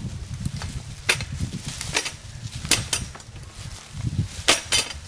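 A honeysuckle bush being rocked and levered out of the ground with a Shrub Buster bar: several sharp snaps and clicks at irregular intervals, the clearest in pairs a little before halfway and near the end, over a low rumble.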